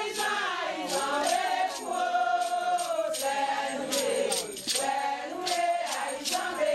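A group of voices singing a Haitian Vodou ceremonial song together, with a shaken rattle keeping a steady beat of about two to three strokes a second.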